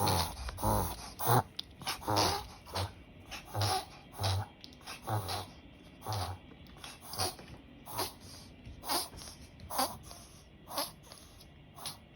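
Black Pomeranian reverse sneezing: a run of short honking intakes through the nose, about one every three-quarters of a second, growing fainter near the end. A vet judged these episodes to be reverse sneezing rather than tracheal collapse.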